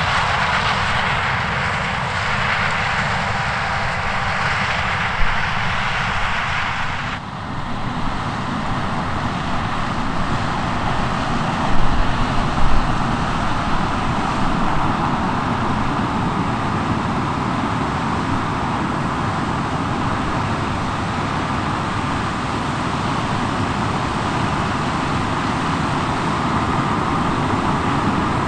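John Deere S780 combine's diesel engine and threshing machinery running steadily while harvesting corn. About seven seconds in the sound changes abruptly, with a combine and tractor heard together while grain is unloaded on the go, and there are a couple of short low bumps a few seconds later.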